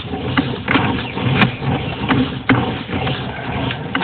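Sewer inspection camera's push cable being pulled back out of the line, with irregular clicks and rattles over a steady low hum.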